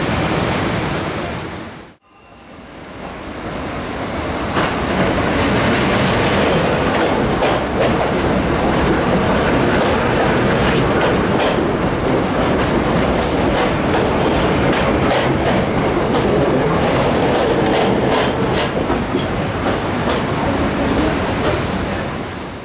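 Vintage subway train running past a station platform: steady rumble of wheels on rails with rapid clicking over the rail joints. The sound cuts out abruptly about two seconds in, builds back up, and fades as the train leaves near the end.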